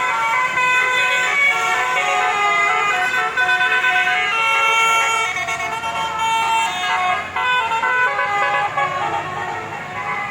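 Basuri (telolet) multi-tone vehicle horn playing a melody: a run of held horn notes stepping up and down in pitch, one after another.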